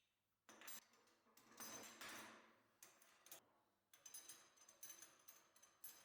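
Faint, irregular metallic clinks and clicks, coming thicker in the last two seconds.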